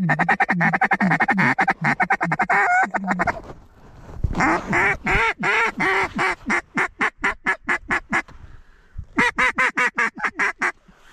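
Mallard duck call blown by a hunter: a fast run of chuckle notes for about three seconds, then a series of quacks that quicken and shorten, and a short quick run of notes near the end.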